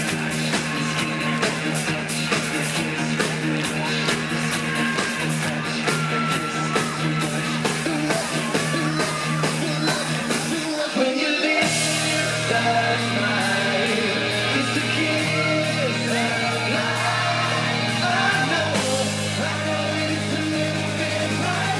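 A pop band playing live, with lead singing over a steady beat and band backing. Around eleven seconds in, the low end drops out for about a second before the full band comes back in.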